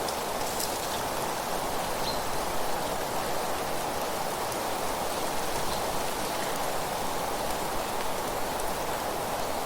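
Steady rushing of wind through leaves, with a few faint, short high chirps a couple of times.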